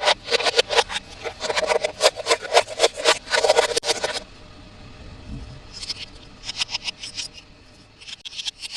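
Toy packaging being handled and opened: a fast run of crisp scraping, crinkling strokes for about four seconds, then a short pause and a sparser, quieter run of strokes.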